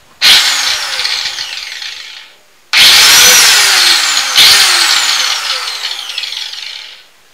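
Black & Decker angle grinder switched on three times with no disc fitted, running free. Each time the motor whine starts suddenly, then falls in pitch and fades as it winds down after the switch is released.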